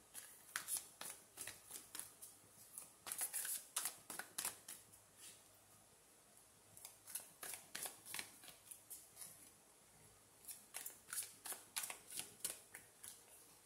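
A deck of tarot cards being shuffled by hand: a run of quick, crisp card strokes in two spells, with a short pause about halfway through.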